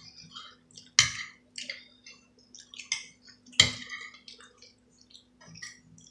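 Forks and spoons clinking and scraping against plates, with two sharper knocks, about a second in and about halfway through, over a faint steady hum.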